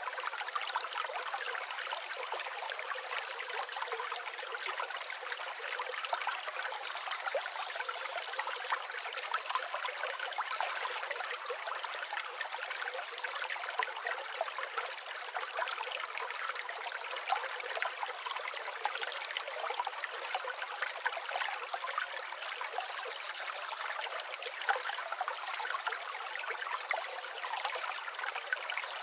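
River water flowing and babbling steadily, a continuous flickering splash with no deep rumble.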